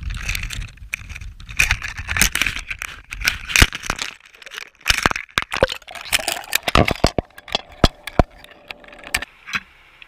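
Action camera in a waterproof housing going down into the sea with a cod jig: fast irregular knocks, clicks and splashing as it is handled and breaks the surface. About nine seconds in the clatter stops and a muffled, steady underwater hush is left.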